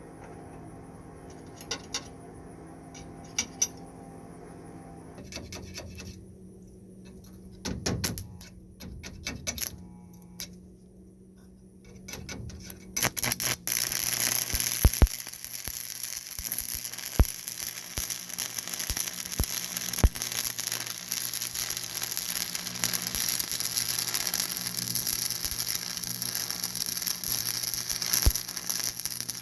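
A few light clicks and metal knocks, then about thirteen seconds in an arc welder strikes an arc and runs with a steady, loud crackling hiss, with occasional sharp pops.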